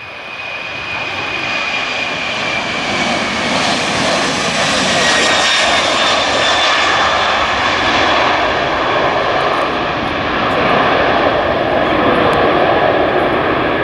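Boeing 767-300ER's twin turbofan engines at takeoff thrust as the airliner rolls past, lifts off and climbs. The jet noise swells over the first few seconds, then holds loud, with a high whine that slides down in pitch as it passes.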